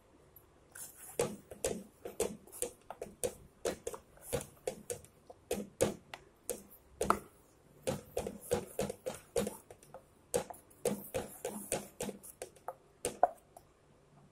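Wooden spatula stirring a thick tomato gravy in a kadhai: a busy run of irregular clicks, wet smacks and knocks against the pan, a few each second.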